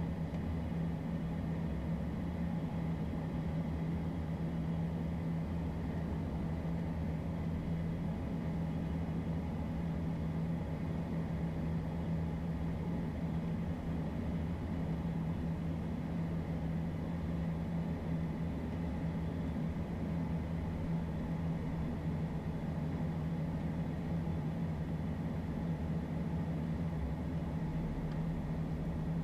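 Steady cockpit drone of a twin-turbofan Beechcraft Premier I business jet climbing out after takeoff: engine and airflow noise with a strong low hum.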